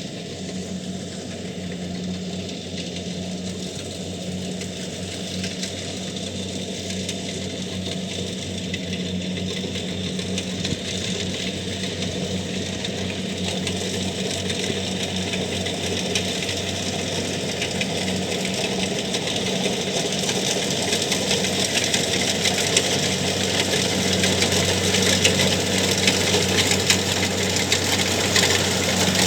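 Kubota DC70Plus rice combine harvester running steadily, its diesel engine humming under the rattle of the threshing and cutting mechanism, growing gradually louder.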